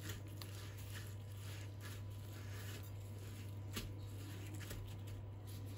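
Chicken drumstick being pressed and rolled in dry breadcrumbs by a gloved hand: soft, irregular rustling and crunching of the crumbs. A steady low hum runs underneath.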